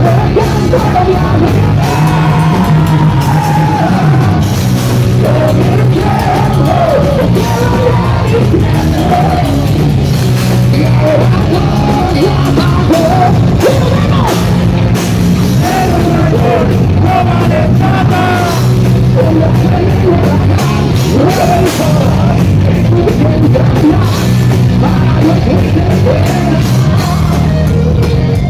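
Heavy metal band playing live and loud: electric guitars, bass and drums, with a singer's voice over them.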